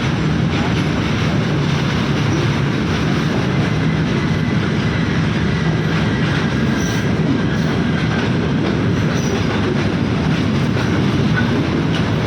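Twin Alco diesel locomotives running with a train, a steady loud engine drone under continuous rail and wheel noise.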